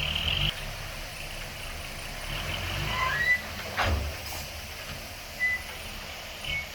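Diesel engine of heavy earthmoving machinery running at a steady low rumble, with a few brief high-pitched bursts and one sharp clank about four seconds in.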